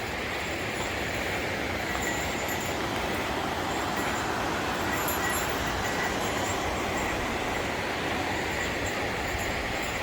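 Steady rushing of the Sheep River's fast water, an even roar with no break or change.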